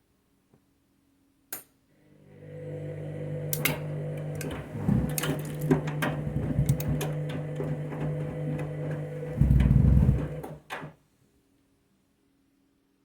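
Candy washing machine in its main wash: a click, then the drum motor starts up and turns the drum with a steady hum and frequent soft knocks from the tumbling cushion covers. It rises to a low rumble near the end and then stops after about nine seconds: the turn-and-pause rhythm of a wash cycle.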